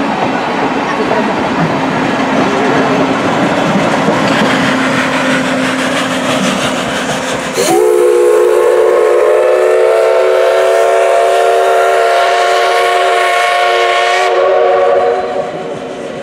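Vintage passenger coaches rolling past, wheels clacking over the rail joints. About eight seconds in, the D51 steam locomotive sounds a long steam-whistle blast of several tones together, rising slightly in pitch and cutting off about seven seconds later.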